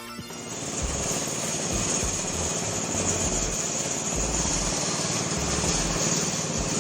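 A plastic shredding machine starts up about half a second in and runs steadily, with a loud high hiss and uneven low thuds underneath.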